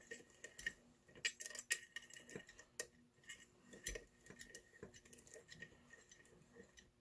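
Keys and a solid brass padlock being handled: scattered light metallic clinks and taps, a few sharper ones early and thinning out toward the end.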